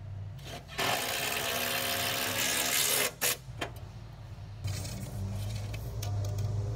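Cordless drill/driver running in one burst of about two seconds, starting about a second in, then two quick short blips of the trigger.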